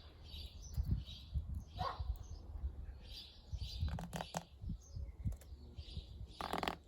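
Small garden birds chirping in short high calls, repeated in little groups, over a low rumble. A single dog bark comes about two seconds in, and a brief harsh rustle near the end.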